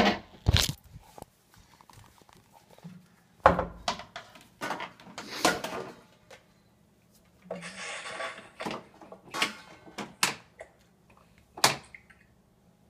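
Dishes and cabinet doors knocking and clunking as a dishwasher is unloaded: a run of separate sharp knocks, with a short clattering rattle about eight seconds in.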